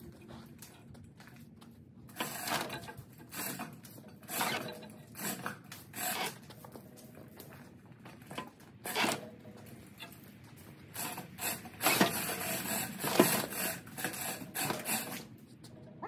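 Steel chain and the small Mighty Kat crawler bulldozer clanking and creaking in irregular bursts as the machine is dragged forward on its tracks by a hand chain fall. The clatter starts about two seconds in and is loudest about three-quarters of the way through.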